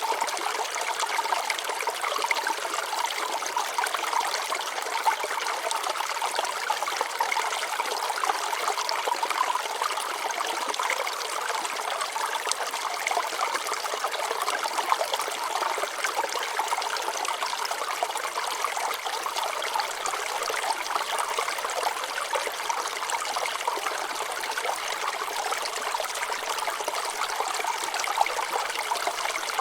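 Shallow stream water trickling and splashing over rocks, a steady babbling with small bubbly splashes and little low end.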